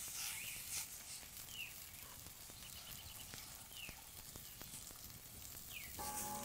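Field ambience with a steady high hiss. A bird repeats a short falling chirp every second or two, with a quick run of short notes about three seconds in. Music comes in near the end.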